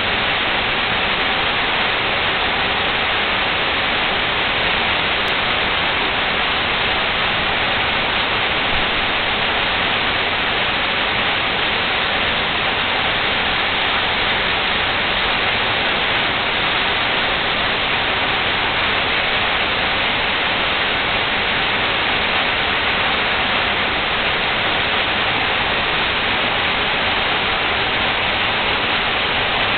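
Waterfall pouring: a loud, steady rush of falling water with no breaks.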